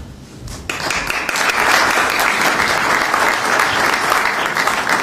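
Audience applauding, a dense steady clapping that breaks out suddenly less than a second in.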